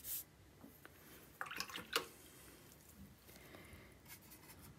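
Faint scratchy swishes of a watercolor brush working wet paint in a plastic palette. There is a short scrape at the start, and a cluster of brushing strokes ending in a light tap about two seconds in.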